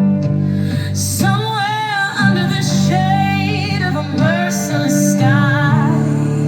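Song with a sustained guitar and bass backing; a vibrato-laden vocal line comes in about a second in and carries on to near the end.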